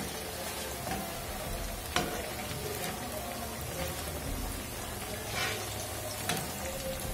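Besan-battered bread pakoras deep-frying in hot oil in a wok, a steady sizzle. A few light clicks as a wire skimmer turns them against the pan.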